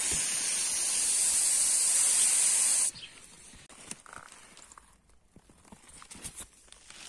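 Steady hiss of pressurised gas rushing out at a bicycle tyre, cutting off sharply about three seconds in. After it come quiet knocks and rustles of the tyre being handled.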